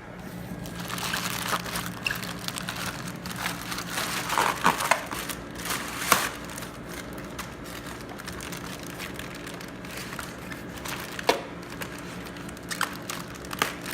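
Parcel packaging crinkling and rustling as it is unwrapped by hand, with sharper crackles and clicks a few times, the loudest about six seconds in.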